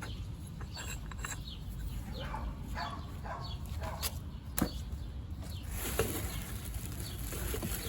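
Small birds chirping in short, repeated falling calls over a low steady background, with a few sharp clicks about four, four and a half and six seconds in.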